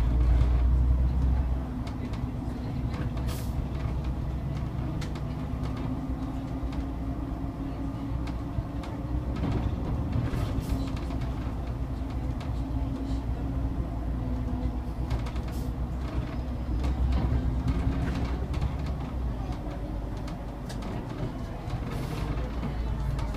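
City bus heard from inside while driving in traffic: a steady low engine rumble with a held hum. The rumble swells in the first second or two and again about two-thirds of the way through, with small rattles and clicks along the way.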